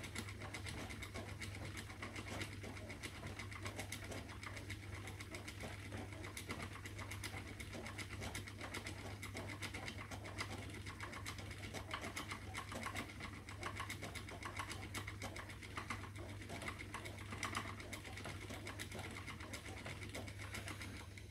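Spinning wheel running steadily while plying yarn, with a fast, even clicking and whirr from the wheel and flyer.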